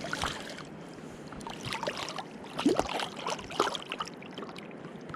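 Water splashing and sloshing in several short, irregular bursts over a steady hiss.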